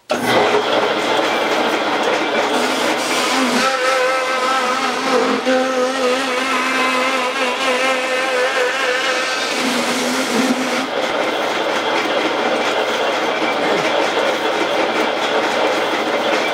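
Bandsaw starting suddenly and running steadily while its blade cuts through a cardboard box, with a wavering whine over the machine noise in the middle stretch as the box is pushed through.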